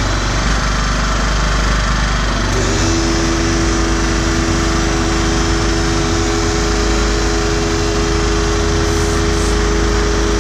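A Honeywell 1600-watt portable inverter generator's small engine running steadily. About three seconds in, a pancake air compressor plugged into it starts up, adding a steady pitched hum over the engine.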